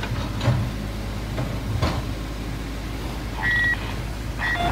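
A motor engine running steadily, a low drone with a few knocks, and a short high-pitched tone about three and a half seconds in and again briefly near the end.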